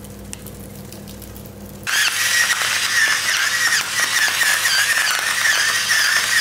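Electric salt grinder running over the chips, grinding pink salt crystals with a high whine that wavers slightly in pitch; it starts about two seconds in.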